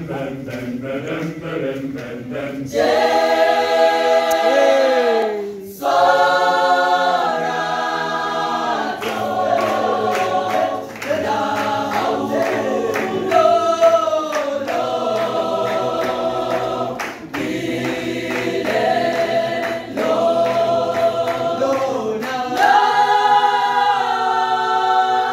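Mixed church choir singing a cappella in phrases of a few seconds, with rhythmic handclaps through parts of the song.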